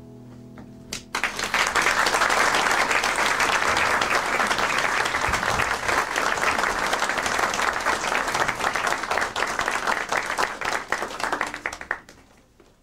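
Audience applauding, a dense steady clapping that starts about a second in as the last held chord of the band cuts off, and dies away near the end.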